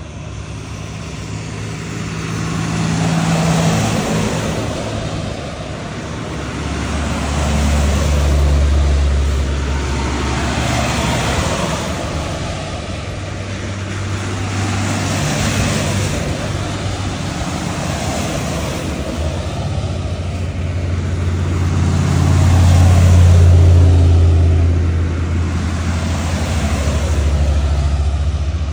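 A line of buses driving past one after another. Each pass is a swell of engine and tyre noise that rises and fades, over a low engine drone.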